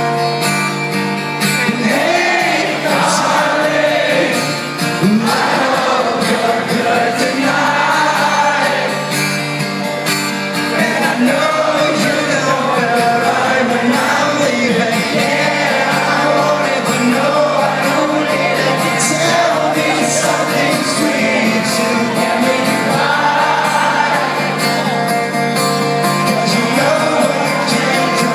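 Live acoustic rock song from within the audience: strummed acoustic guitars under a male lead vocal, with the crowd singing along.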